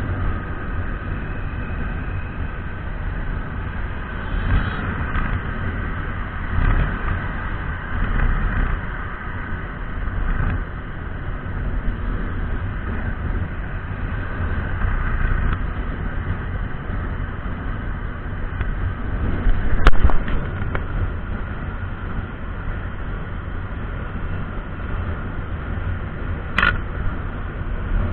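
Wind rushing over the microphone along with the steady running of a Honda scooter cruising at road speed. A single sharp knock comes about two-thirds of the way through, and a brief high-pitched sound near the end.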